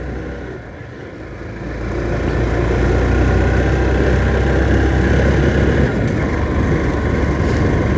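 Motorcycle engine pulling in first gear up a steep climb, growing louder about two seconds in and then holding steady.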